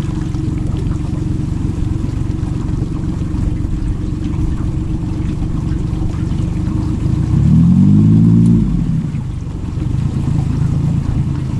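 Boat outboard motor running slowly, trimmed up for shallow water. About seven and a half seconds in it revs up briefly, rising and then falling in pitch, before settling back to a steady run.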